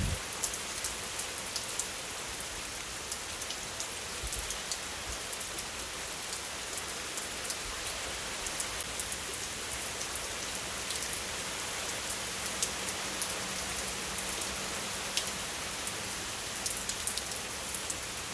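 Steady rain falling, a constant hiss dotted with many sharp ticks of individual drops striking close by.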